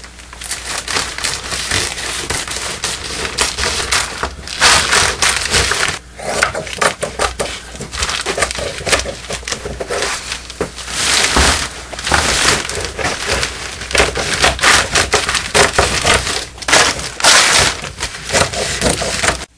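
Scissors snipping through a plastic tarp, the sheet crinkling and crackling in quick, dense bursts as it is cut and handled.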